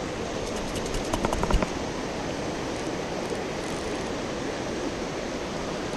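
Fast river water rushing over a rocky riffle, a steady noise, with a short run of small clicks and knocks about a second in.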